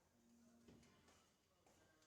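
Near silence: room tone, with a faint click about three-quarters of a second in.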